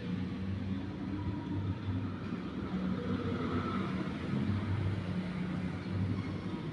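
A low, steady mechanical rumble, rising and falling slightly in strength.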